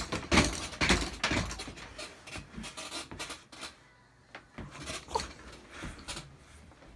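Irregular rubbing, scratching and knocking noises from a handheld phone being moved and handled, loudest in the first two seconds and then sparser and quieter.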